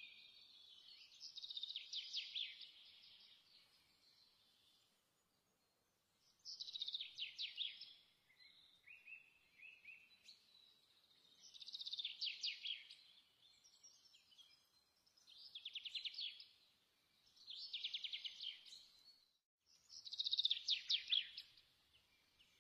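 Songbird singing: about six short, fast trilled phrases, high-pitched and a few seconds apart.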